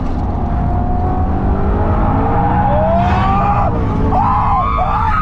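BMW E92 M3's V8 engine pulling hard on track, heard from inside the cabin, its pitch climbing for a few seconds and then dropping sharply. The tyres squeal through a corner in the last second or so.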